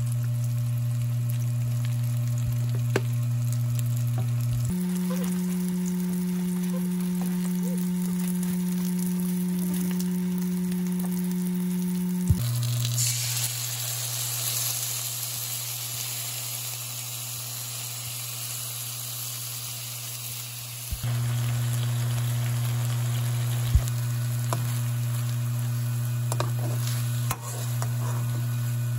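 Tofu cubes frying and sizzling in oil in a pan. From about 12 seconds in to about 21 seconds, the sizzle turns louder and hissier as sauce is poured into the hot pan to scorch slightly before coating the tofu. Over it runs background music of held low tones that change pitch a few times.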